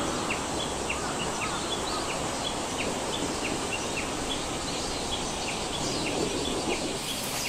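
Steady rush of river water, with a small creature's short, high, falling chirp repeating about twice a second over it.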